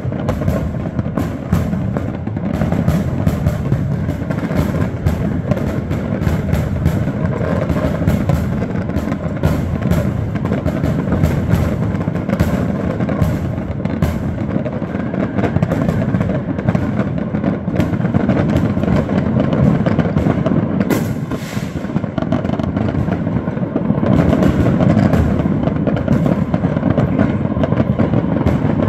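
Many fireworks and firecrackers going off at once: a dense, unbroken crackle of pops and bangs under deeper booms from aerial shells bursting.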